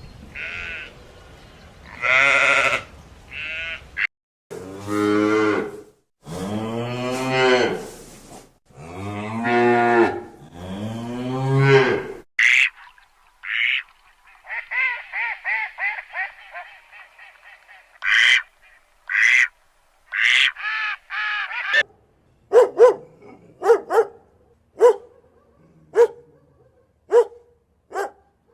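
A run of farm-animal calls: a few short higher calls, then about four long, low cow moos, followed by shorter, higher calls and, near the end, a quick series of short, sharp calls.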